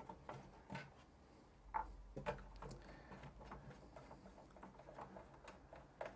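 Faint, scattered small clicks and light scrapes of hands working at the back of a Power Macintosh 6100's metal case, undoing its thumb screws.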